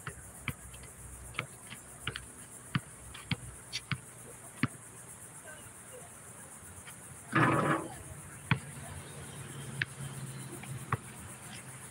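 Basketball dribbled on an outdoor asphalt court: sharp bounces about twice a second for the first five seconds. About seven seconds in, a shot hits the metal rim and backboard with a brief rattling clang, and the ball then bounces a few more times on the court, over a steady high insect hiss.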